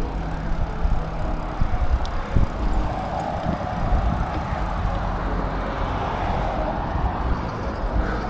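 Wind rumbling on the microphone of a moving bicycle, with the road noise of passing cars swelling and fading in the middle.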